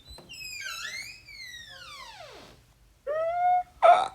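A single pitched tone, wavering as it slides steeply down in pitch over about two seconds, followed about a second later by a short held note.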